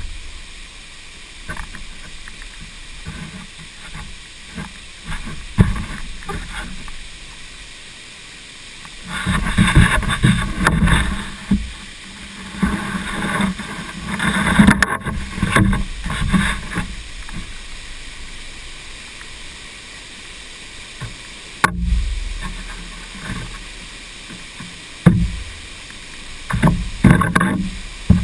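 Water rushing and splashing in uneven surges, loudest for several seconds in the middle and again near the end.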